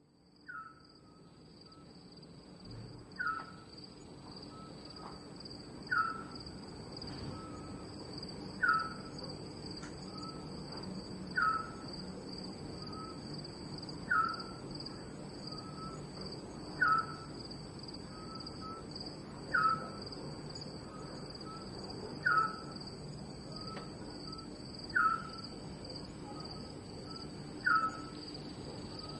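Night ambience fading in: a steady, high insect chorus, with an animal's short falling call repeated about every three seconds, each followed by a couple of softer notes.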